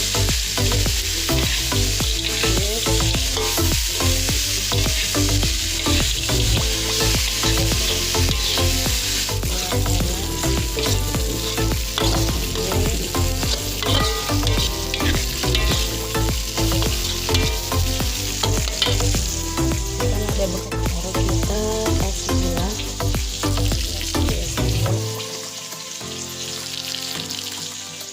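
Food sizzling as it fries in hot oil, with stirring. Background music runs underneath, and its bass drops out near the end.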